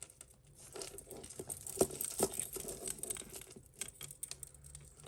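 Tangled costume-jewellery necklaces, chains and beads, clicking and rustling softly as they are worked apart by hand, with scattered small clicks.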